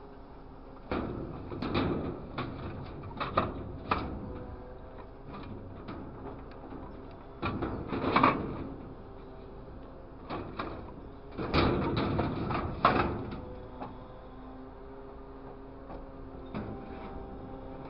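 Steel grapple on a grapple truck's crane clanking and scraping against a large steel plate in several bursts, loudest about eight seconds in and again around twelve seconds. Underneath, the truck's engine runs with a steady hum.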